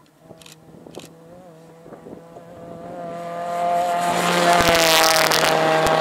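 Rally car on a gravel stage approaching at speed and passing close by: a steady engine note grows louder over the first few seconds, then the rush of tyres and thrown gravel joins it, loudest as the car goes past about four to five seconds in.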